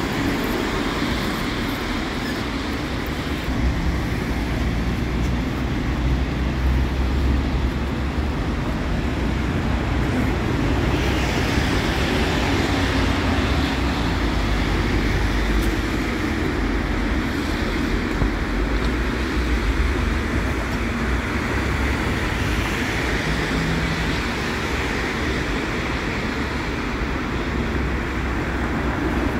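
Steady low rumble and running noise of KVB light-rail trams moving through a street-level stop, mixed with city traffic noise.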